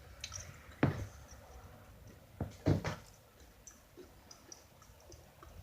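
A few light knocks, one about a second in and a close pair near the middle, with faint clicks between.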